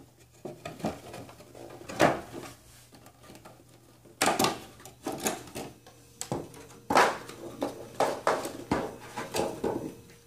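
Retail packaging being handled: a clear plastic insert and a cardboard box crackling, knocking and scraping in irregular clicks and rustles. The loudest snaps come about two seconds in, and again around four and seven seconds in.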